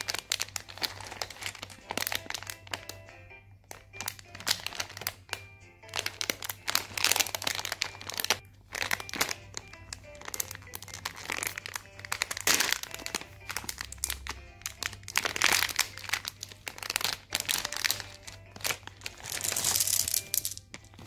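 Shiny foil snack pouch crinkling and rustling as it is handled and torn open, in many irregular bursts, with the chewy candy bites tipped out into a palm near the end. Background music plays underneath.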